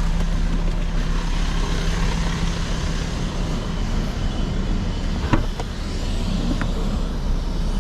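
A Volkswagen Touareg's engine idling steadily, with two sharp clicks a little past five seconds in.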